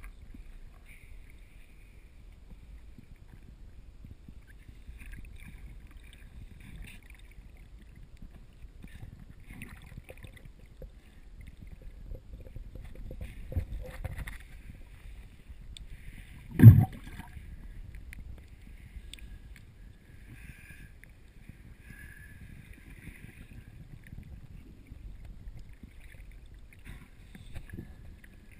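Muffled water sound heard from a camera just under the surface: a steady low rumble with faint sloshing. One loud thump comes a little past halfway.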